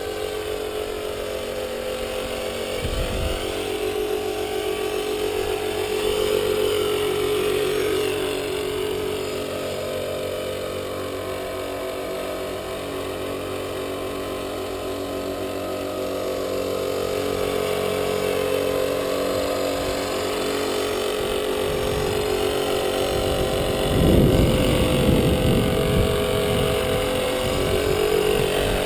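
Align T-Rex 450 Pro electric RC helicopter in a scale EC135 fuselage flying: the steady whine of its motor and gears with the buzz of the main rotor, the pitch rising and falling as it manoeuvres. A louder low rushing noise comes about 24 seconds in, as it flies close.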